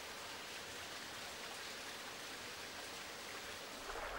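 Faint, steady, even hiss of outdoor background ambience, with no distinct events.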